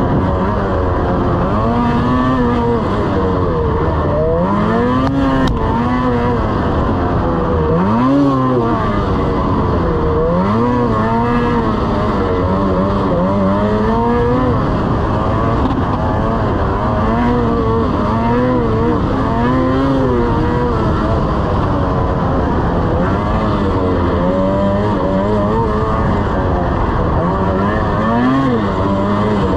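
Lynx RS 600 snowmobile's two-stroke engine running under way, its revs rising and falling again and again every few seconds as the throttle is worked.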